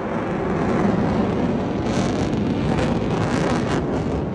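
Fighter jet's engines flying a low pass: a loud, steady rushing rumble that swells about half a second in, with crackling in the second half. Wind buffets the microphone.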